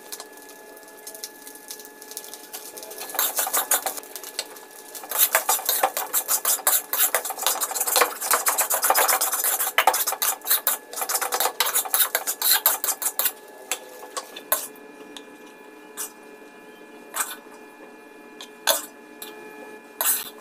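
Spatula scraping and clattering against a wok as fried rice is stir-fried: rapid, dense scrapes for most of the first two-thirds, then a few separate knocks.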